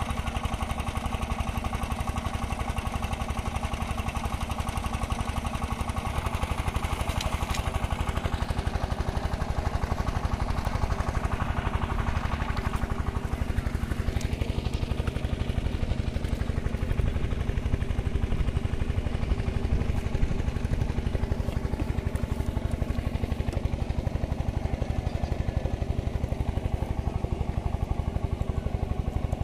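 An engine running steadily with a fast, even throb.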